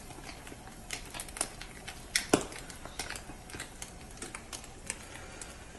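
Matzah brei frying in a pan on a gas burner, crackling with irregular sharp pops.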